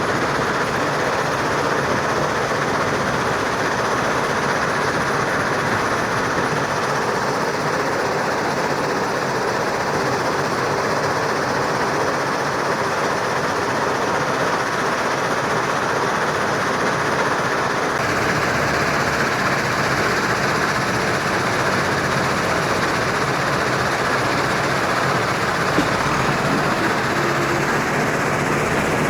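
Steady running noise of heavy earthmoving machinery, a dense rumbling hiss with no clear beat, whose character shifts a little past halfway.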